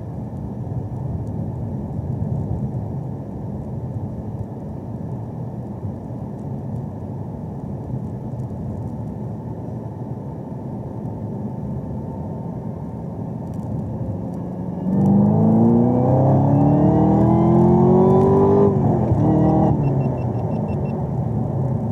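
Chevrolet Camaro ZL1's supercharged V8 and road noise as a steady low rumble, then about fifteen seconds in the car accelerates hard: the engine note climbs quickly, drops at a gear change, climbs again and drops once more about a second later.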